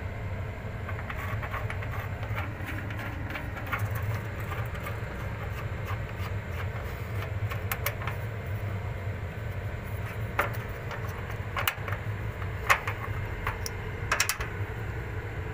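Scattered metal clicks and clinks of a tool and screws being worked on the sheet-metal casing of a split AC outdoor unit, with a few sharper clinks near the end, over a steady low background hum.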